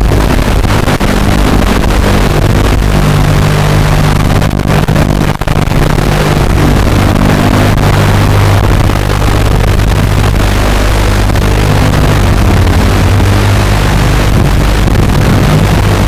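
Mini FPV quadcopter's Sunnysky 1306 brushless motors and propellers droning loudly and without a break, over a constant hiss, with a brief dip about five seconds in.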